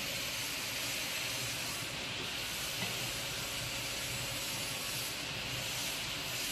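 Spring roll wrapper sheet machine running: a steady, even hiss.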